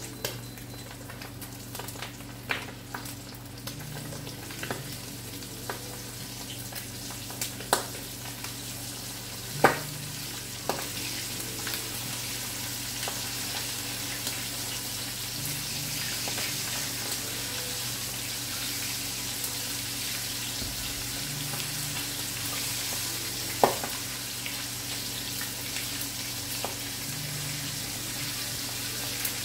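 Flour-and-cornmeal-coated turkey wings frying in hot oil in a skillet, a steady sizzle that grows a little louder about ten seconds in. A few sharp clicks are heard over it, the loudest near the ten-second mark and again near the end.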